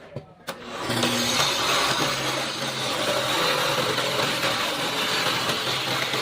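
An electric woodworking power tool running steadily at full speed, starting about a second in, an even rushing noise over a low hum.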